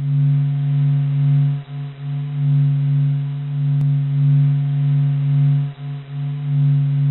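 Audio recording of the Sun: a simple, monotonous low hum held on one steady pitch, swelling and fading gently, with two brief dips.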